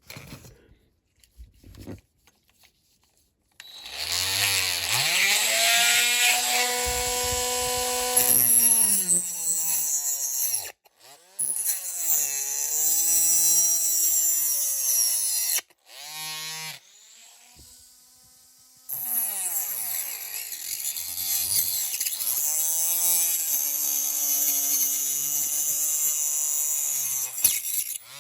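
Handheld rotary multi-tool running in several spells with short breaks, its motor whine dipping and recovering in pitch as it cuts away part of a diecast model's plastic interior.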